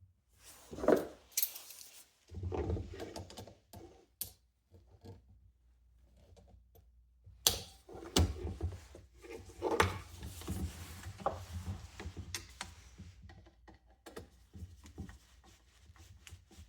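Irregular clicks, knocks and rattles of box fan parts and tools being handled and fitted, with sharp knocks about a second in and again about halfway through.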